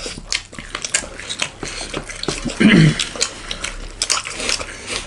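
Close-miked eating sounds: wet chewing and mouth clicks with light clatter of dishes and cutlery, plus a short low hum about two and a half seconds in.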